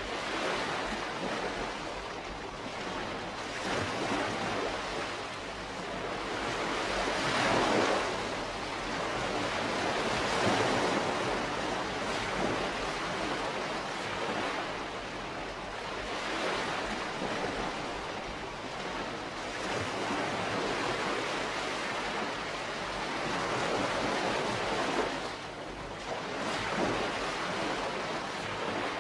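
Calm sea wash: small waves breaking and washing up the shore in slow, gentle swells a few seconds apart.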